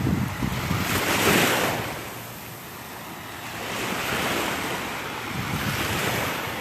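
Small surf breaking and washing up the beach, one wave peaking about a second in and another swelling about four seconds in, with wind buffeting the microphone.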